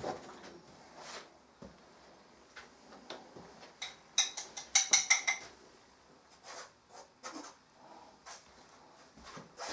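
Painting tools and paint tins being handled: scattered clicks and knocks, with a quick run of sharp clinks about four to five seconds in.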